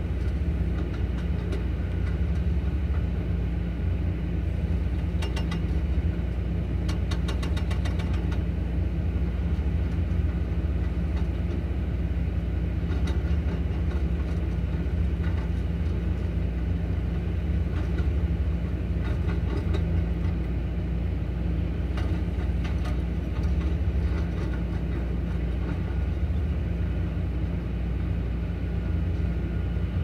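SANY SY335C excavators running, with a hydraulic breaker hammering rapidly into a pile of asphalt blocks: a steady low rumble of fast blows, broken now and then by short sharper clatters.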